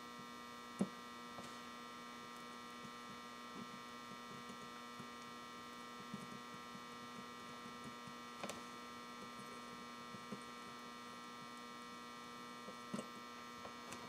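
Steady electrical hum of a power inverter, several pitches held together, with a few faint small clicks from wire and tools being handled about a second in, around eight seconds in and near the end.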